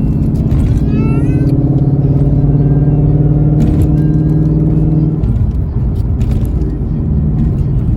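Loud V8 exhaust heard from inside the car while driving, a steady deep engine note that turns rougher and less even about five seconds in.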